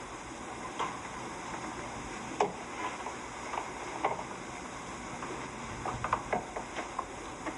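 Steady hiss of an old film soundtrack, with scattered faint clicks and ticks.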